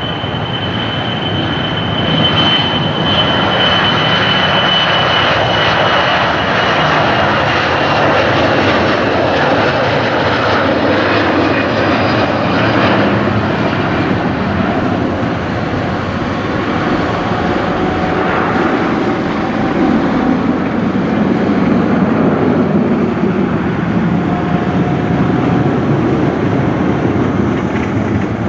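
Boeing 737-500's two CFM56-3 turbofan engines at takeoff thrust as the jet rolls, lifts off and climbs away. The noise is loud and steady, with a high whine that slowly drops in pitch and fades over the first dozen seconds.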